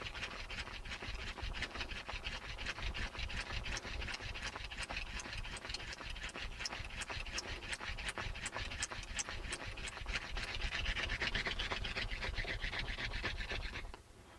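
Mullein hand-drill spindle spun rapidly back and forth between the palms in a clematis vine fireboard: a fast, even rasping of wood on wood and hands on the spindle, about five strokes a second. It is the final fast, hard-pressed spin that brings the dust in the notch to an ember; it grows louder near the end and stops abruptly.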